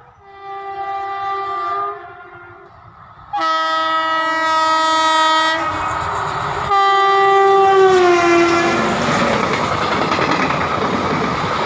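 A passenger train's locomotive horn sounds three long blasts as the train approaches at speed, the last blast dropping in pitch as the locomotive passes. Then the coaches rush by with a steady rumble and clatter of wheels on the rails.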